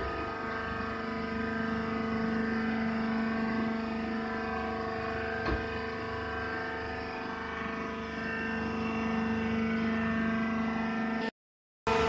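Hydraulic baler's power unit running with a steady hum, with a single light click about five and a half seconds in. The hum cuts off abruptly near the end.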